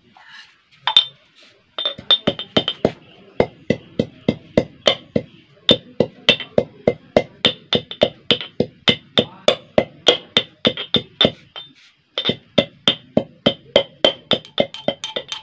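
Metal pestle pounding green chilli in a small steel cup mortar: a steady run of sharp, ringing metallic strikes, about three a second, with two brief pauses.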